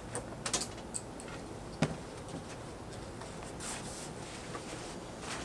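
Handling noise from a rolled length of black nylon fabric on a cutting table: a few light clicks in the first second, one sharper tap just under two seconds in, then faint rustling.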